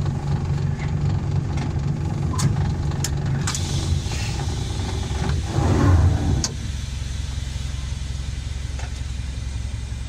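Miniature railway locomotive's engine idling with a steady low hum while the train stands at the platform. It swells louder for about a second between five and six and a half seconds in, then settles back to a quieter idle, with a few sharp clicks in the first half.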